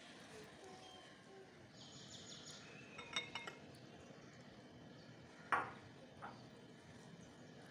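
A glass bowl set down on a hard countertop and its plastic lid lifted off. A quick cluster of light glassy clinks comes about three seconds in, then a sharper knock about two seconds later and a softer one just after.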